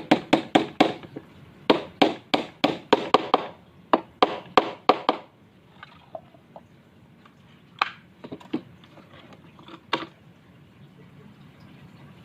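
Rapid knocking on wood, about four or five sharp strikes a second in runs for the first five seconds, then a few scattered lighter taps.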